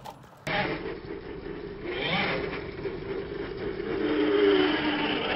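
Radio-controlled truck driving over dirt: its motor whines over tyre and dirt noise. The sound comes in abruptly about half a second in, and the whine rises in pitch as the truck speeds up about two seconds in, then holds a steadier tone.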